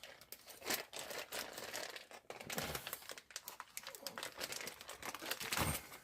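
A bag holding the new steering damper's fitting kit (nuts, washers, rubber bushes) being torn open and handled, giving irregular crinkling and rustling that stops at the end.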